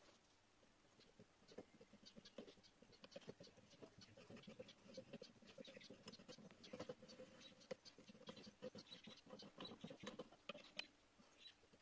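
Faint squeaks and scratchy clicks of a hand tap cutting a thread into a metal plate, turned by a tap wrench.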